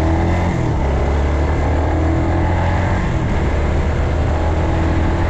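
Suzuki GZ250's single-cylinder four-stroke engine running steadily under way on its newly fitted aftermarket carburettor, its note shifting slightly a couple of times with the throttle.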